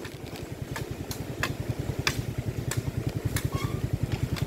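Suzuki Address 110 scooter's small single-cylinder engine running at low speed, a fast even putter that grows a little louder towards the end. Sharp clicks and rattles are scattered through it.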